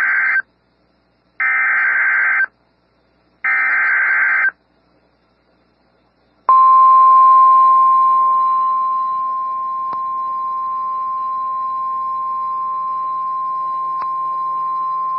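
NOAA Weather Radio / EAS alert signal for a severe thunderstorm warning: the end of one SAME digital header burst, then two more, each about a second of harsh electronic data warble. After a two-second pause comes the 1050 Hz warning alarm tone, one steady tone lasting about nine seconds that starts louder and settles down a little over its first few seconds.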